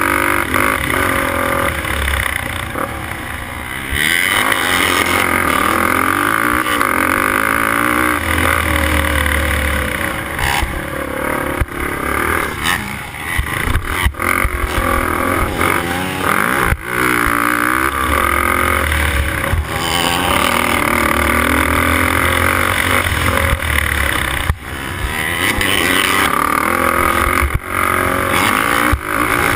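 Race quad's engine running hard under a rider, its pitch rising and falling as it revs, with several sudden brief drops in the sound.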